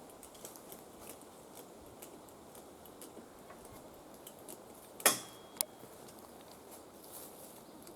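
Metal parts of a ladder tree stand being handled: faint small ticks and knocks, then a sharp metallic clank with a brief ring about five seconds in, followed by a lighter click.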